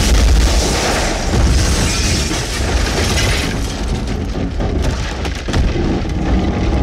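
Cinematic intro/outro sound effects: deep booming rumble and noisy crackle with music behind it, loud throughout, with a fresh surge about five and a half seconds in.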